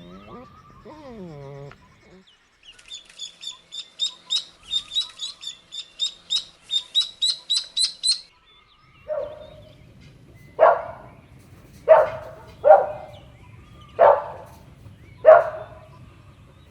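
A small bird chirping rapidly, about four to five chirps a second, for several seconds. Then a golden retriever puppy barking six times, about one bark a second, each short and sharp.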